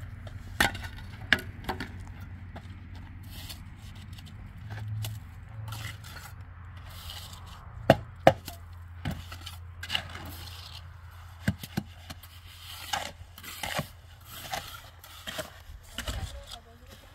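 Scattered sharp knocks and scraping, with a pair of loud knocks close together about halfway through, over a steady low hum.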